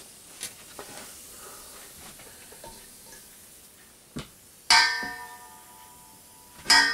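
Light handling clicks, then two ringing metallic clangs about two seconds apart in the second half, as metal tools or parts are set down or knock together in the soldering setup.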